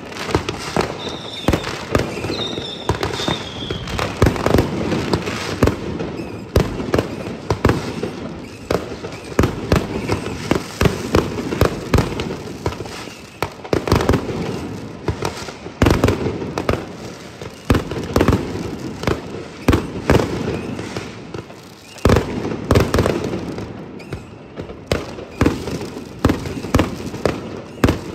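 Many New Year's Eve fireworks going off at once: a continuous run of overlapping bangs and crackling, with two short whistles about one and three seconds in.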